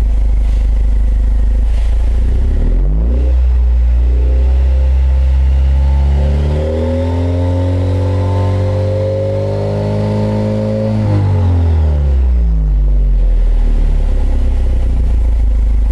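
Jeep Wrangler Rubicon JL engine through a Borla ATAK exhaust, idling and then revved. The pitch rises about three seconds in, climbs further and is held high from about six to eleven seconds, then drops back to idle.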